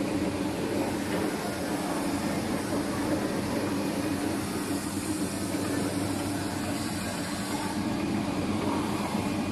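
FLV30-2 automatic can seaming machine running, a steady mechanical noise.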